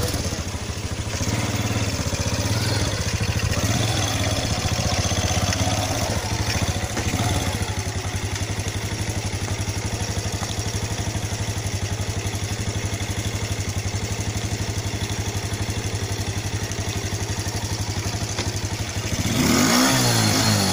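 Small motorcycle engine running steadily close by, its pitch wavering a little early on, then revving up about a second before the end.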